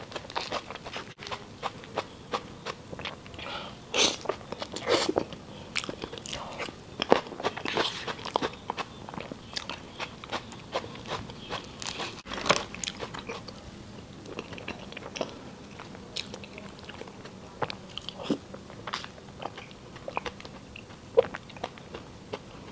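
Close-miked chewing and mouth sounds of someone eating a soft cream-layered persimmon crepe cake, heard as irregular clicks and smacks.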